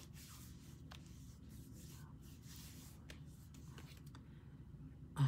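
Hands rubbing oil into the skin of the face: faint, soft rubbing with a few light clicks.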